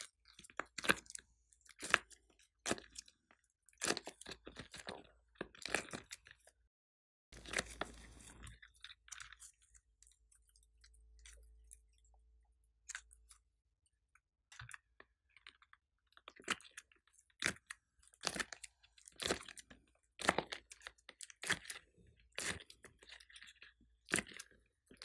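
Yellow slime being peeled from a silicone mold and squeezed by hand: sticky, crackly squelches in short bursts, with a quieter stretch in the middle.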